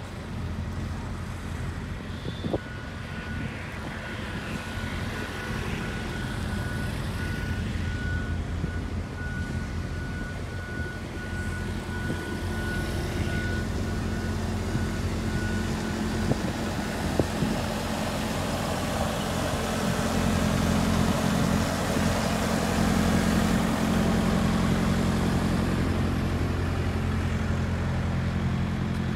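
Diesel engines of asphalt paving machinery running steadily, a low hum that grows louder in the second half. A high warning beeper sounds in a steady run of beeps from about two seconds in until about halfway through.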